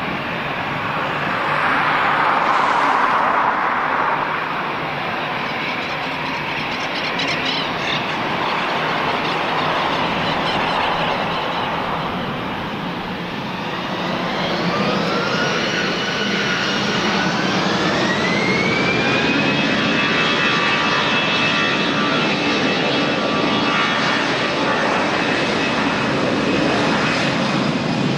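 Jet airliner engines with a broad roar. About halfway through, a whine rises in pitch and then holds steady as the engines spool up to high power.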